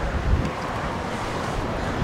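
Steady, distant jet engine noise from a four-jet formation of Blue Angels F/A-18s climbing overhead, with wind buffeting the microphone.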